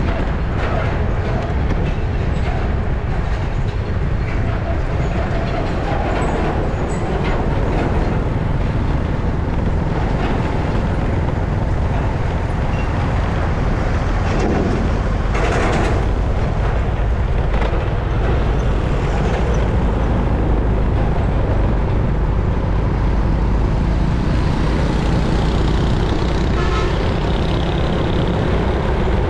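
Steady rush of wind and road noise from riding along a city street in traffic, with a brief louder whoosh about halfway through.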